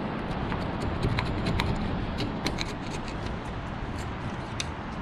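Old foam and weather-stripping adhesive being scraped and picked out of a car door's weatherstrip channel: irregular small clicks and scratches over a steady background hiss.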